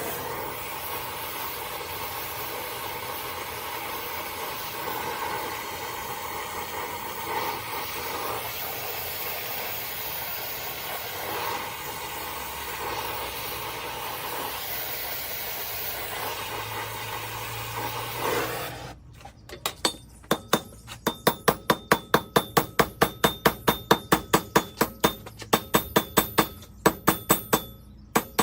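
Gas torch flame hissing steadily while it heats a rivet, shut off after about nineteen seconds. Then a hammer peens the hot rivet head in rapid ringing blows, about three to four a second, setting the rivet.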